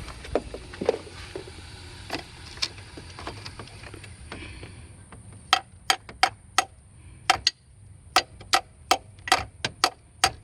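A metal rod knocking on the starter motor of a 2018 Ford Explorer that won't crank, tapping to free the starter. The sharp metallic knocks come in irregular runs of about three a second from about halfway in, with fainter knocks before, over a low steady hum.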